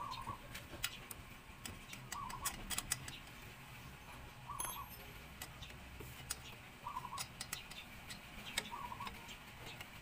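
Irregular metallic clicks and ticks of a wrench working a bolt on a motorcycle's gear-shifter linkage. A short chirping sound repeats about every two seconds.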